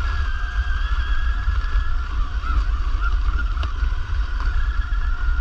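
Electric RC car's brushless motor running at a steady speed: a continuous high whine that wavers slightly in pitch, over a constant low rumble.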